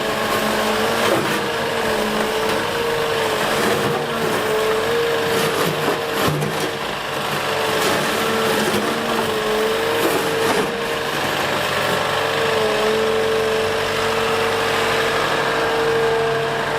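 Liebherr A 910 compact wheel excavator's diesel engine and hydraulics working under load: a steady whine that wavers slightly in pitch, over the engine's running, with a few sharp knocks from the work.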